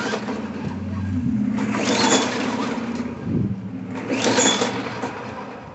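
Briggs & Stratton 4.5 hp engine on a push mower being pull-started. The recoil starter rope is yanked about every two seconds, each pull a brief whirring crank, and the engine does not catch.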